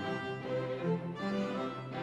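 String sextet of two violins, two violas and two cellos playing live, with bowed notes moving together in several parts.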